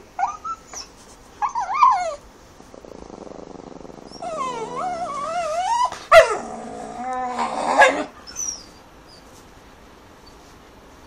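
A dog 'talking': short whiny yowls that bend up and down in pitch, a low growl about three seconds in, then longer warbling, whimpering yowls from about four to eight seconds. A single sharp knock about six seconds in is the loudest sound.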